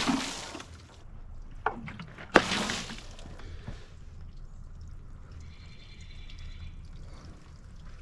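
Water splashed onto freshly sawn walnut slabs to wet them and bring out the grain: two quick splashes about two and a half seconds apart, each dying away within half a second.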